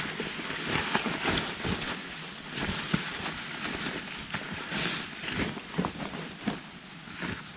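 Footsteps crunching and rustling through dry leaf litter and brush, in an irregular run of scuffs and cracks.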